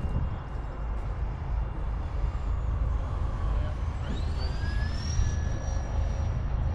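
Electric ducted fans of a Freewing RC jet whining: about four seconds in the whine rises quickly as the fans spool up, then holds steady and high. Under it is a constant low rumble of wind on the microphone.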